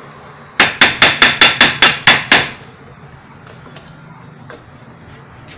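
A hammer striking in a quick run of about nine blows, roughly five a second, each with a short metallic ring, stopping about two and a half seconds in. The blows are knocking the rusted end cap loose from an orange juicer's motor.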